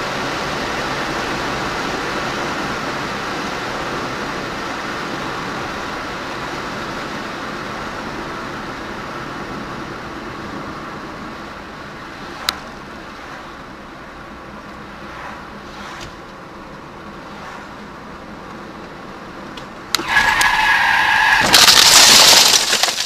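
Steady road and engine noise inside a moving car, slowly getting quieter. Near the end a sudden loud, shrill two-pitch sound lasts about a second and a half, then a very loud crash as a cow hits the car's windshield.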